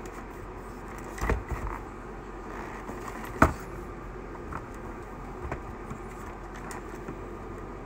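Scattered clicks and knocks from hands handling the parts of a radio-controlled monster truck, with the sharpest, loudest click about three and a half seconds in. A steady low hum runs underneath.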